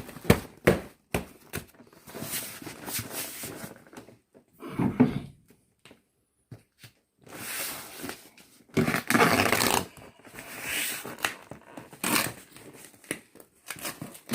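Plastic bag rustling and crinkling as it is handled over a packed cardboard box, with irregular bursts and a few short knocks.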